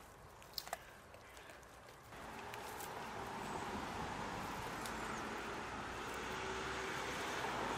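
A few faint sharp clicks, then from about two seconds in a steady outdoor rushing noise that swells and holds, with a faint low hum inside it.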